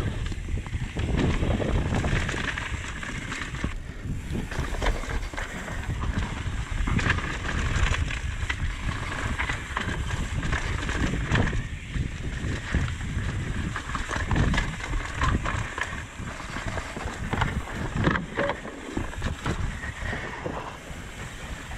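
Mountain bike riding fast down a rough dirt and rock trail: wind rushing over the microphone, with tyres rolling over dirt and rock and frequent knocks and rattles from the bike.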